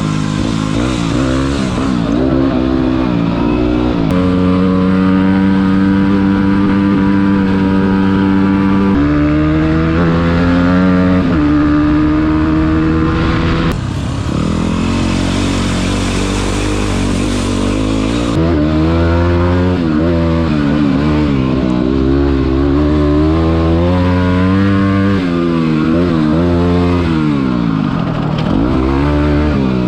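Yamaha WR single-cylinder dual-sport motorcycle engine running under way, holding steady revs that step up and down several times with gear changes and throttle, over wind and road noise.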